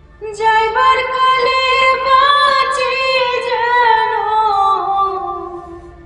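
A woman singing solo: one long held phrase with small turns in pitch, rising a little and then slowly falling and fading away near the end.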